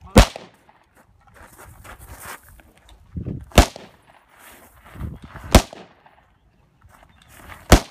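Four single gunshots, spaced two to three seconds apart, each a sharp crack. Softer shuffling noises come between them as the shooter moves and kneels on gravel.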